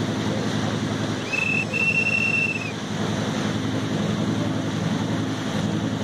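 Boat engine running steadily with a low, evenly pulsing drone, over the wash of water. About a second in, a single high, steady whistle sounds for about a second and a half.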